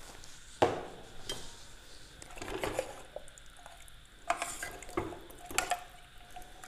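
Metal ladle stirring thick mutton curry in an open pressure cooker, with a series of sharp knocks and scrapes of the ladle against the pot, the first about half a second in.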